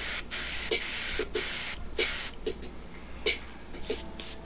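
Airbrush spraying acrylic paint in a series of short hissing bursts as the trigger is pressed and let go, the longer bursts in the first two seconds and quicker, shorter ones after.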